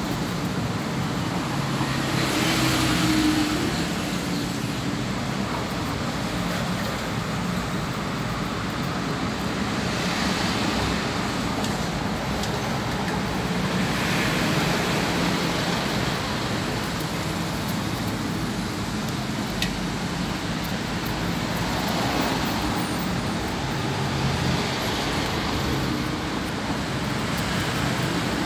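Steady background rumble and hiss with no single clear source, swelling louder for a second or two several times.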